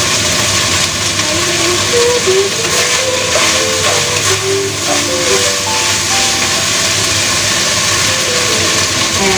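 Minced meat sizzling steadily as it fries in a hot stainless wok, with a wooden spatula stirring and scraping it a couple of seconds in. A soft melody plays underneath.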